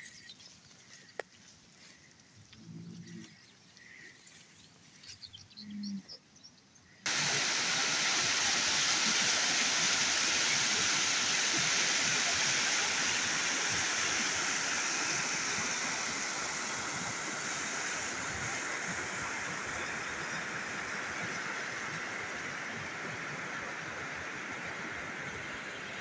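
Mountain stream rushing over stones: a steady, loud wash of water that starts abruptly about seven seconds in and eases slightly toward the end. Before it, a quiet stretch with a few faint short low calls and soft chirps.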